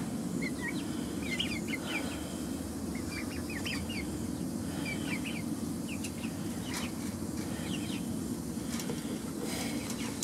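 Young buff Brahma chickens and turkey poults peeping, many short high chirps scattered through, over a steady low hum.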